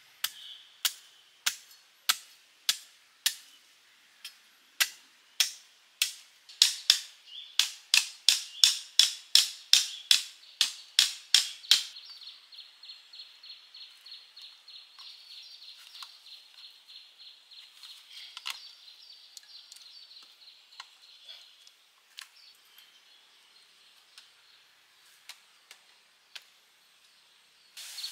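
A cicada calling: loud sharp clicks that speed up over about twelve seconds and merge into a steady high pulsing buzz, which fades about ten seconds later.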